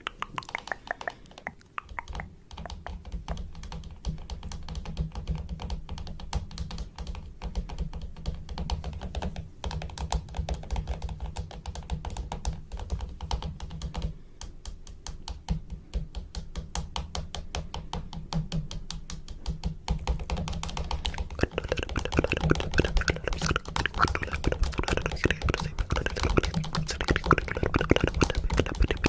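A fast, dense run of clicks and taps, like typing, over a low steady hum; it grows louder about two-thirds of the way in.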